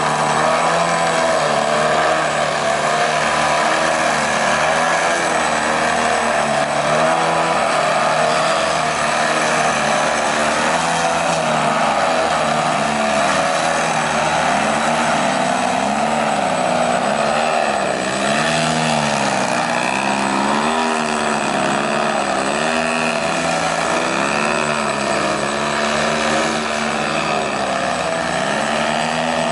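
Radio-controlled aerobatic airplanes flying close together, their engines and propellers rising and falling in pitch over and over as the throttle is worked through hovering and tumbling moves.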